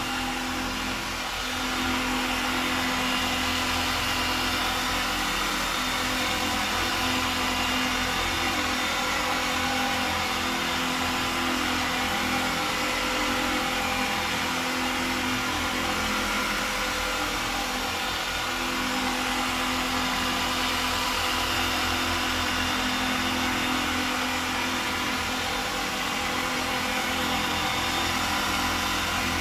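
Hand-held machine polisher with a soft finishing pad running steadily on car paint, working damp finishing compound until the water and paste are polished off. Its motor holds a steady hum.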